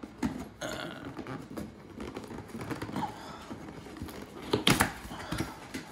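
Cardboard box being opened by hand: scattered creaks, scrapes and small clicks as the lid flap is pried up and pulled back, with a couple of sharper snaps about four and a half seconds in.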